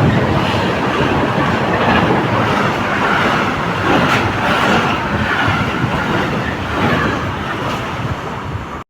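Freight train with its wagons rolling past, giving a steady, loud rail noise from the wheels on the track.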